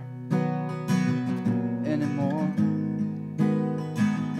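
Acoustic guitar strummed in a steady rhythm, with a man's voice singing briefly about halfway through.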